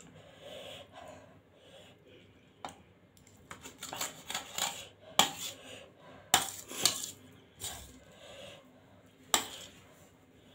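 Metal forks clinking and scraping against a stainless steel plate while noodles are twirled and lifted, with several sharp clinks, the loudest in the second half.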